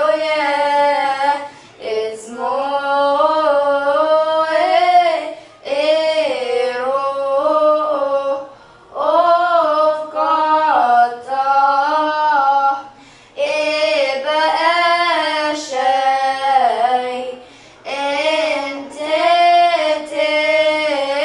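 Two girls singing a church hymn together, unaccompanied, in held, gliding phrases of a few seconds each with short breaks for breath between them.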